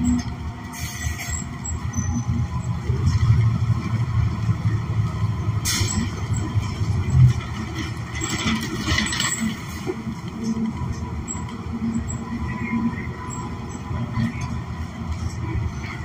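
Cabin noise of a New Flyer XN40 transit bus under way: the Cummins Westport ISL G natural-gas engine and road rumble steadily, with a sharp knock about six seconds in and a spell of rattling a couple of seconds later.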